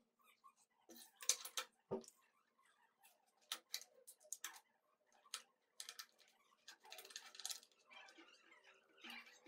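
Faint handling noise as a strap clamp with plastic corner blocks is fitted around a wooden drawer box: scattered light clicks and knocks, a low thud about two seconds in, and brief rustling of the strap.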